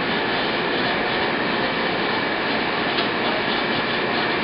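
Steady rushing noise of air-handling ventilation, even and unchanging throughout.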